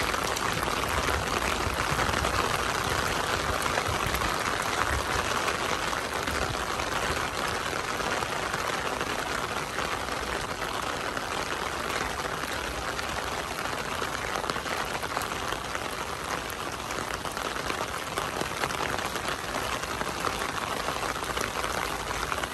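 Steady rain falling, a dense even patter with a low rumble underneath.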